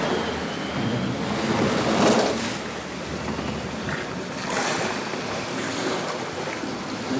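Wind and waves rushing past a sailboat under way, with wind buffeting the microphone. The wash swells louder about two seconds in and again around four and a half seconds.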